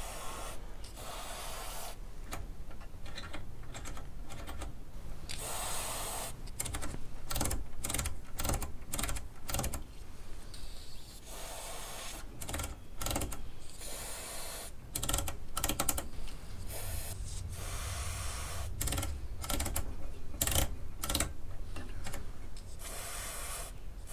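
Aerosol electrical lubricant sprayed in several short hissing bursts into a 1941 Fisk Radiola's multi-gang rotary wave-band switch. The switch clicks over and over through its positions as it is worked backwards and forwards to clean its contacts.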